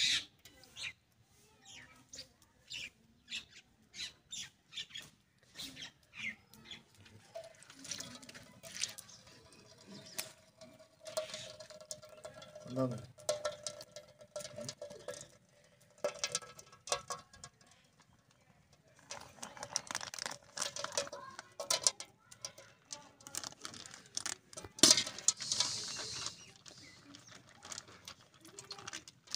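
Plastic ghee packet crinkling and clicking in the hand as it is squeezed out into an aluminium pot, with faint voices in the background.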